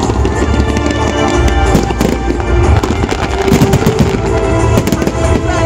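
Fireworks display: shells bursting and crackling in rapid, overlapping succession, with music playing along underneath.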